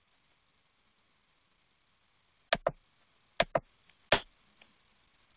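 Computer mouse button clicking: two quick double-clicks about two and a half and three and a half seconds in, then a single click, with a couple of fainter clicks, as text is selected in an editor.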